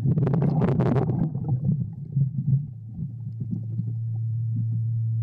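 Underwater sound: a steady low hum, with a short burst of bubbling in the first second from a diver exhaling, then scattered faint clicks.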